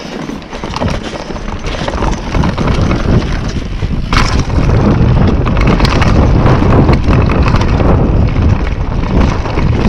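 Mountain bike ridden fast down a dirt forest trail: wind buffeting the microphone over the rush of tyres on dirt and the rattle of the bike over bumps, growing louder over the first few seconds, with a sharp knock about four seconds in.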